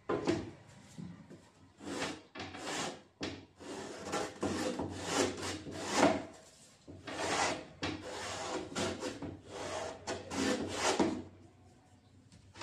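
Corner of a thin wooden zero-clearance table-saw insert blank being rounded by hand: a run of irregular scraping, rasping strokes of wood rubbing on wood. The strokes stop near the end.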